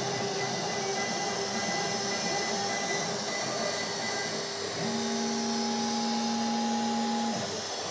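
CNC router spindle cutting a wooden board while the dust extraction runs, giving a steady machine noise with a whine on top. A lower steady tone from the machine's axis motors comes in about five seconds in and cuts off shortly before the end.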